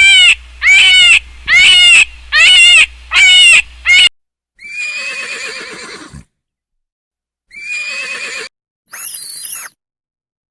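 Horse neighing: a quick run of six short, loud calls, then three longer neighs separated by short silences.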